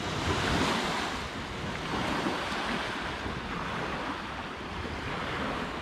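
Small waves lapping on a loch's beach, a steady wash that swells and eases every second or two, with wind in the background.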